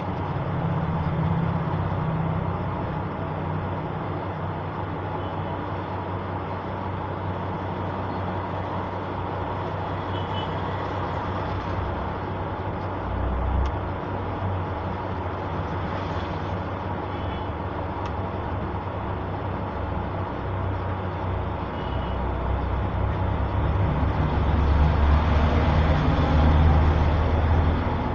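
Steady low mechanical rumble with an even hiss over it, growing louder near the end.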